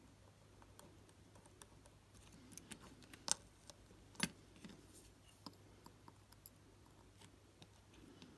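Faint, scattered small clicks and taps from the digital watch module and metal tweezers being handled while its screws are refitted, with two sharper clicks about three and four seconds in.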